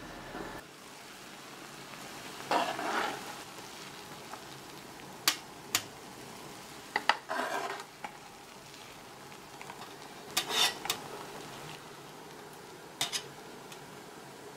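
Water simmering in the deep pan of a BRUNO electric hot plate with a steady bubbling hiss, while a metal turner clinks and scrapes against the pan and a wire rack several times as boiled pretzel dough is lifted out.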